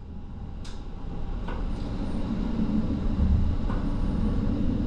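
Kintetsu Hinotori electric express train running through an underground tunnel. The low rumble builds over the first couple of seconds, and a few faint clicks sound above it.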